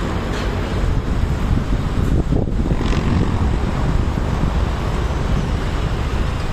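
Wind buffeting the phone's microphone in a steady low rumble, with city traffic noise beneath it.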